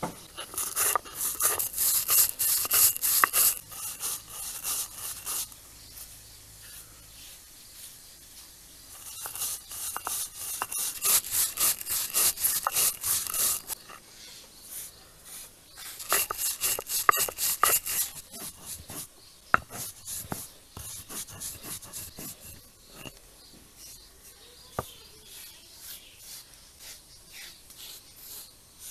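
Coriander seeds being crushed on a stone grinding slab with a stone roller: quick, rhythmic, gritty back-and-forth scraping. It comes in three bouts with short pauses between them and trails off into scattered softer scrapes near the end.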